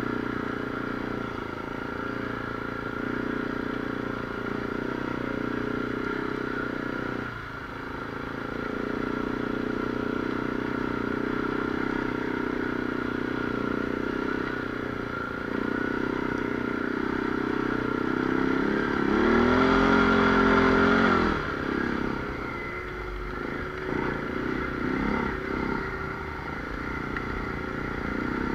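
Side-by-side UTV engine running while driving a dirt trail. About two-thirds of the way through it revs up briefly, rising then falling in pitch, the loudest part.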